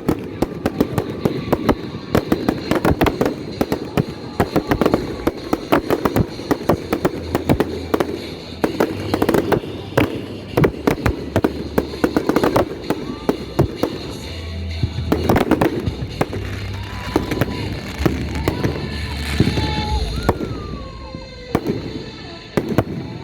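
Fireworks and firecrackers going off: a dense, irregular run of sharp bangs and crackles that continues without a break.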